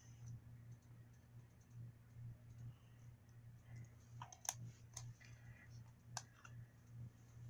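Small plastic toy pieces being handled: a few sharp clicks around the middle, over a faint steady low hum.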